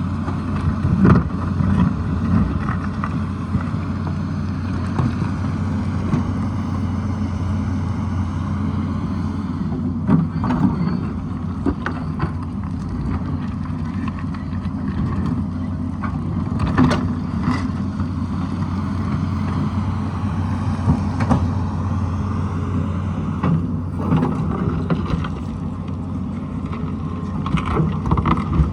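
Tata Hitachi excavator's diesel engine running steadily, with scattered knocks and clanks from the machine working rock and soil.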